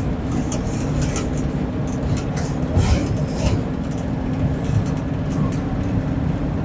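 Inside the cab of a 2008 Chevrolet 3500 van-chassis truck with a 6.0-liter V8, cruising at road speed: steady engine drone mixed with tire and road noise, with a few faint clicks.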